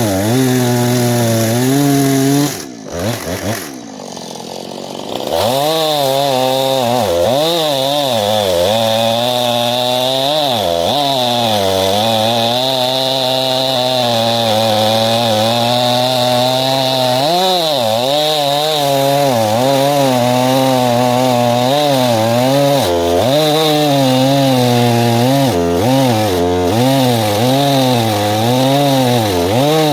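Two-stroke gas chainsaw running at high revs under load as it cuts wood, its pitch wavering as the chain bogs and recovers. About three seconds in it drops back toward idle for a couple of seconds, then revs up again and keeps cutting.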